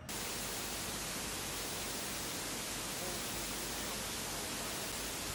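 Steady, even hiss of static noise that cuts in suddenly at the start.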